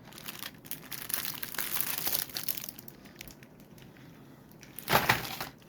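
Plastic lure packaging crinkling and crackling as it is handled and opened, with a short louder burst about five seconds in.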